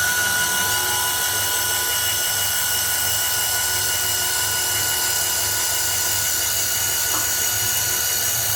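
CNC wood turning lathe running steadily, a high machine whine with several steady tones over a hissy noise, without pause.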